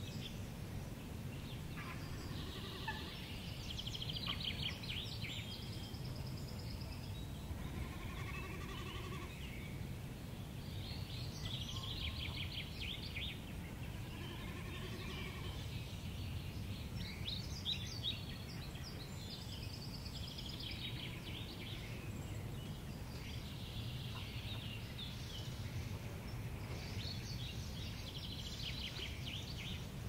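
Songbirds singing in repeated bursts of rapid trilling phrases, a few seconds apart, over a steady low rumble of wind on the microphone.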